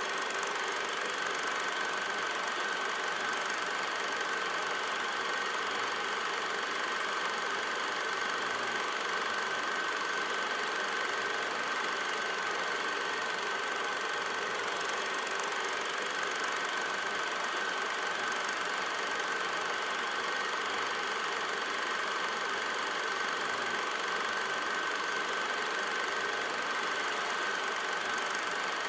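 Film projector running, added as the soundtrack: a steady mechanical whirring and clatter with a constant high whine above it.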